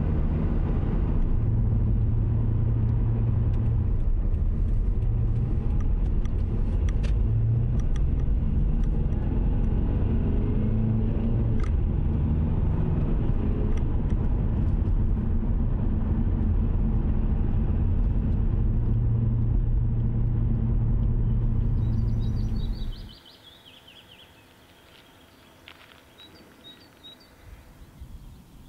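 Car engine and tyre noise heard from inside the cabin while driving: a steady low rumble with a droning engine note. About 23 seconds in it cuts off abruptly, leaving a quiet outdoor background with faint bird chirps.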